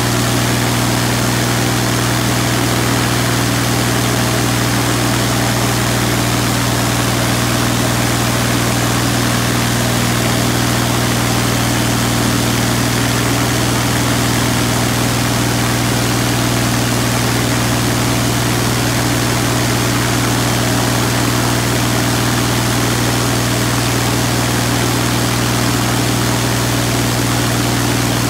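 UL Power UL520iS air-cooled six-cylinder aircraft engine and propeller running steadily at about 2,400 rpm during a ground run-up, heard from the cockpit.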